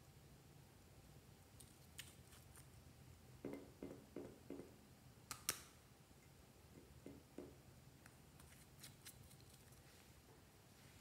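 Small glass nail polish bottle being handled and opened: a cluster of soft knocks as the cap is twisted, then one sharp click about five and a half seconds in. A few softer knocks and faint ticks follow, with near silence between.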